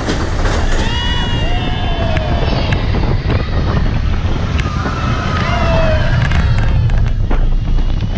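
Ride on the Expedition Everest roller coaster: wind buffets the microphone and the train rumbles along the track, with high wavering cries from the riders about a second in and again around five to six seconds.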